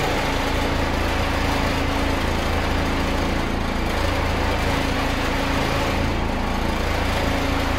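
A 1960s Gillig school bus engine idling steadily, heard from the driver's seat inside the cab.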